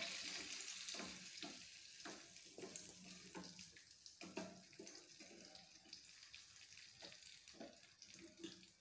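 Turmeric sizzling faintly in hot oil in a small steel pan, fading away, with a steel spoon stirring and clinking against the pan several times.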